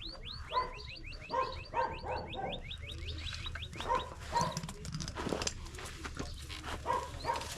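Dogs barking repeatedly in short bursts. In the first three seconds there is also a rapid run of high falling chirps.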